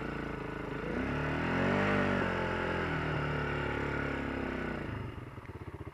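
Honda TRX quad's single-cylinder engine revving up about a second in and pulling steadily through the snow, then dropping back near the end to an idle with an even putter.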